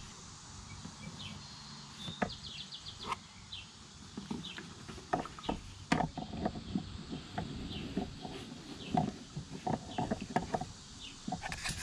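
Handling noise of a plastic lawn tractor fuel tank being turned over in the hands: faint scattered taps, knocks and rustles over a low steady hum, with a quick run of short high chirps about a second in.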